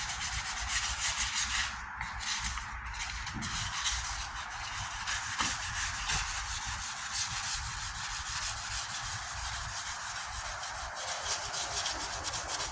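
Sandpaper on a sanding block rubbing back and forth over the painted steel tailgate panel in quick repeated strokes, a continuous raspy scrubbing. The sanding levels the fresh red base coat.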